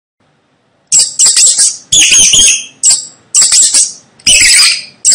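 Mouse squeaking: loud, shrill squeaks in quick runs of two to four, starting about a second in.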